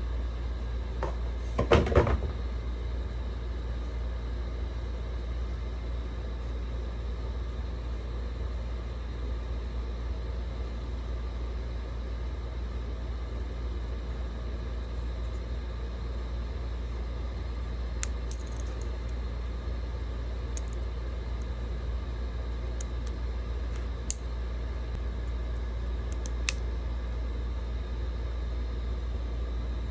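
Handling of an Insta360 X3 camera and its cardboard box, over a steady low background rumble. A short burst of knocks comes about two seconds in, and a few light clicks follow later as fingers work the camera's plastic body and side battery door.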